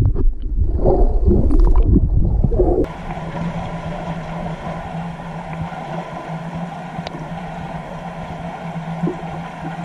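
Muffled underwater water noise heard through a waterproof camera's microphone: a loud low rushing with thumps as hands stroke through the water, which changes abruptly about three seconds in to a quieter steady underwater hiss with a faint low hum.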